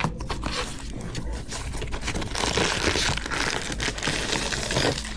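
Blind-box packaging being opened by hand: steady crinkling, scraping and tearing with many small clicks.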